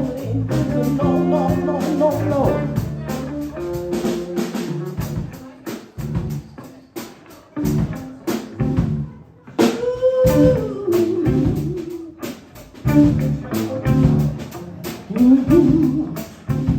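Live band playing an instrumental stretch on drum kit, bass and electric guitar. It opens on held chords, then thins to a sparser groove of sharp drum hits, with a couple of bending, sliding notes over it.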